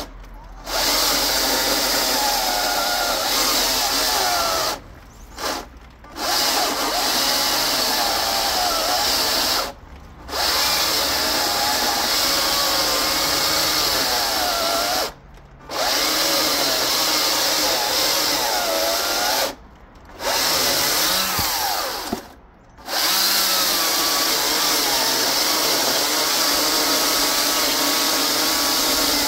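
Greenworks 82CS34 82V cordless electric chainsaw cutting through a thick red oak log, its motor pitch wavering under load. It stops for about half a second, then runs again, several times over. It is running on a 4 Ah battery, which the owner finds too weak for the cut.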